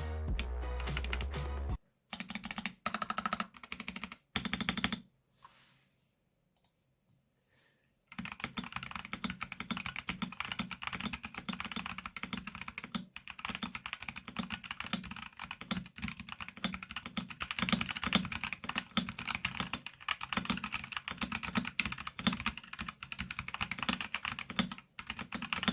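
Typing on a Royal Kludge RK68 mechanical keyboard fitted with Gazzew Boba U4T tactile switches: a few scattered keystrokes, a pause of about three seconds, then fast continuous typing. The keystrokes are less clacky and have less ring, with more thock.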